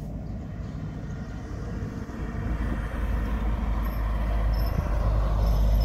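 Wind noise on the microphone over water sloshing as a hand fishing net is pushed through shallow, muddy water; the splashing grows louder about two seconds in.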